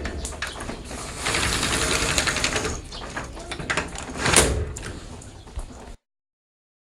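Sliding door rolling along its track, with rattles and clicks, then knocking shut about four seconds in. The effect cuts off abruptly near the end.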